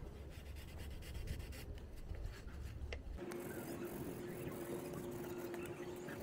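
A hand-held sanding sponge rubbed back and forth over a scratch on a car's bumper, making a faint rasping scrub. About three seconds in, a faint steady hum comes in under it.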